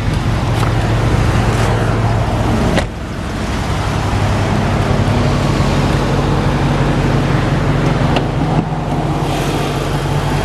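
2010 Dodge Challenger R/T's 5.7-litre Hemi V8 idling steadily, with a short click about eight seconds in.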